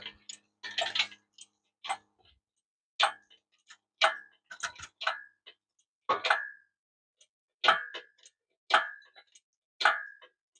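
Engine hoist and its lifting chain clinking, metal on metal: sharp single clinks with a short ring, about one a second, as the chain is shifted and the hanging engine and transmission are worked into position.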